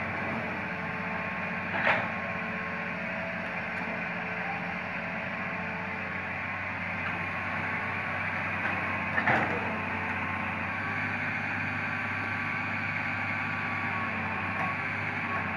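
Hitachi Zaxis 210LC long-arm excavator's diesel engine running steadily as the arm and bucket work, with two sharp knocks, about two seconds in and again about nine seconds in.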